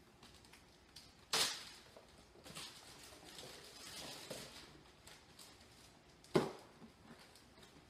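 Clear plastic zipper storage bags rustling and crinkling as they are handled, with two sharp snaps of plastic, about a second and a half in and near the end.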